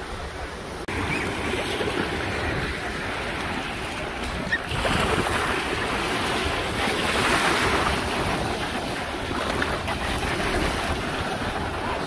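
Small waves breaking and washing up over the sand, with wind buffeting the microphone. The surf gets louder and fuller about five seconds in.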